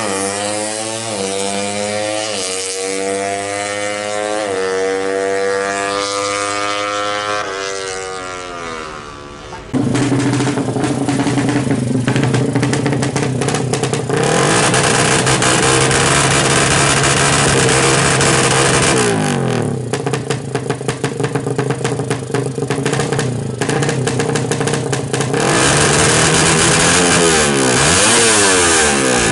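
Suzuki Satria FU drag bike's single-cylinder four-stroke engine with a DOS exhaust, first accelerating away at full throttle, its pitch climbing through several gear changes and fading as it pulls off. About ten seconds in it cuts to the stationary bike revved hard and held high, then blipped in choppy bursts, with the revs dropping and rising again near the end.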